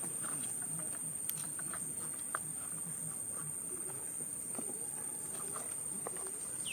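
Outdoor ambience: a steady high-pitched insect drone with scattered faint clicks and rustles, and a short downward bird chirp at the very end.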